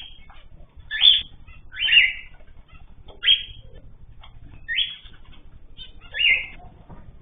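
Caged ornamental birds calling: one loud, short call repeated five times, about every second and a half, with fainter chirps between.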